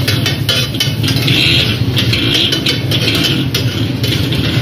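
Metal spatula scraping and clanking against a large flat iron griddle, sharp irregular strikes several times a second, over a steady low engine hum.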